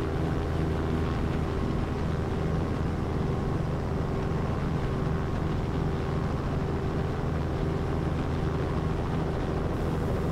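Robinson R44 helicopter's six-cylinder Lycoming piston engine and main rotor running steadily in a low hover-taxi: an even, unchanging drone.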